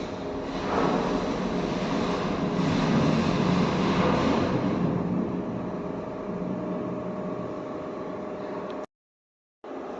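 Arc welding crackle over a steady machine hum. The sound drops out completely for under a second near the end.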